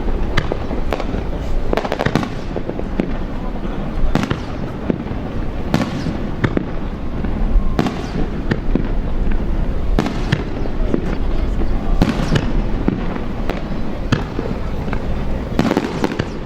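Aerial fireworks bursting: sharp booms every second or two over continuous crackling.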